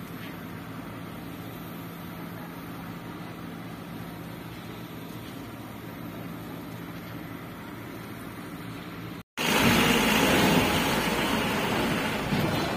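Steady low hum of the berthing ferry's engines across the harbour water, with one level droning tone. About nine seconds in it cuts off sharply, and a loaded truck's engine rumbles loudly as the truck drives off the ferry down the steel loading ramp.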